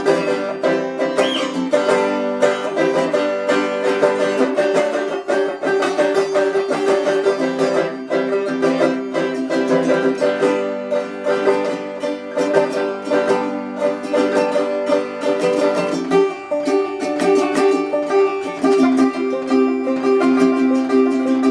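Instrumental music with fast plucked-string picking over steady chords; the harmony shifts about sixteen seconds in.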